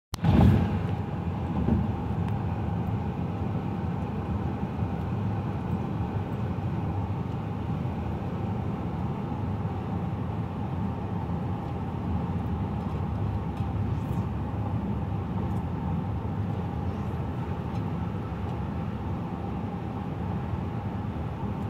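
Steady road noise of a moving car: tyre and engine hum, mostly low-pitched and even throughout, with a brief thump at the very start.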